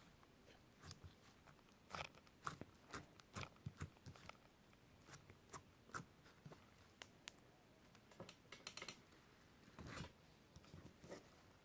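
Homemade glue slime being squeezed and stretched by hand, giving faint, irregular sticky clicks and pops, with a denser run of them near the end.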